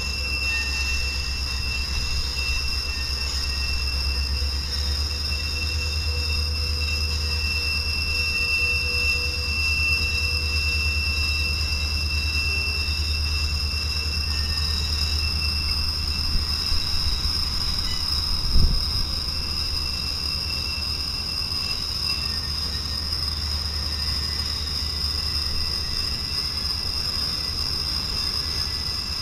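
Rail train carrying quarter-mile strings of continuous welded rail rolling past: a steady low rumble under a continuous high-pitched wheel squeal. A single knock sounds about two-thirds of the way through.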